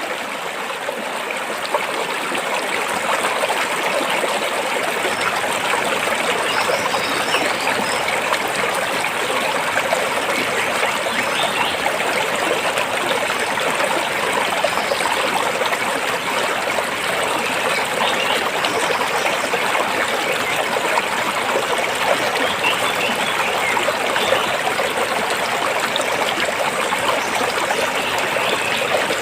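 A rocky stream with water flowing and trickling between the rocks in a steady, unbroken rush.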